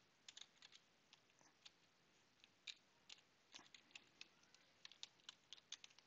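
Faint computer keyboard keystrokes: short irregular taps as a shell command is typed.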